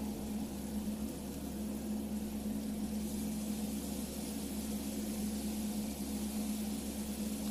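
Steady low machine hum with one strong, unchanging tone.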